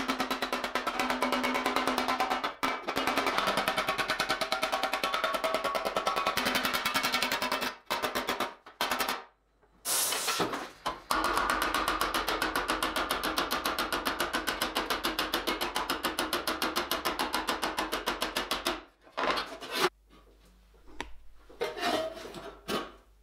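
A fast, even run of steel hammer blows on red-hot 1–1.2 mm stainless steel sheet bent over a steel pipe stake, turning the edge of a breastplate. The hammering breaks off a few times and gives way to quieter, scattered knocks as the plate is handled near the end.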